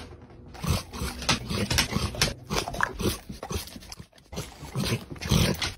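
Black English Labrador crunching a raw green bean: a run of irregular crisp crunches as it chews.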